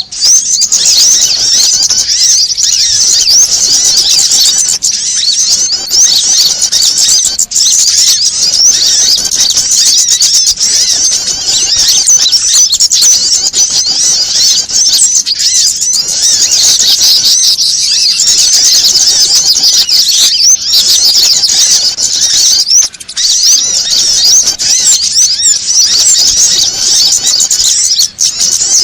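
Bird-lure recording of small birds chattering noisily: a dense, unbroken stream of rapid high-pitched chirps and twitters, a mix of prinia, sunbird and other small-bird calls meant to sound like an agitated flock and draw wild birds in.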